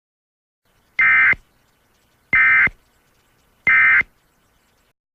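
Three short bursts of Emergency Alert System SAME digital data tones, each a buzzy two-tone warble around 1.5 to 2 kHz lasting about a third of a second, spaced about a second and a third apart: the End of Message code that closes an EAS broadcast.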